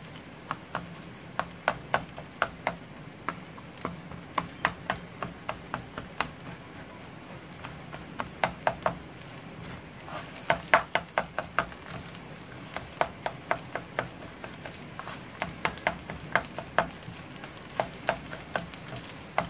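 A spatula clacking and scraping against a frying pan in quick, irregular strokes as food is stirred in the pan, over a steady low hum.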